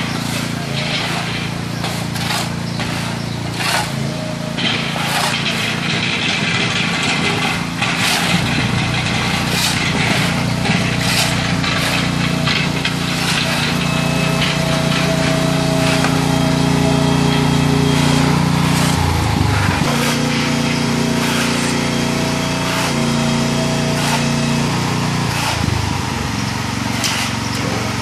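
Grillo G85d two-wheel walk-behind tractor's engine running as it pushes humus with its angled front blade, its note changing a few times. Repeated scrapes and knocks of shovels working the humus sound over it.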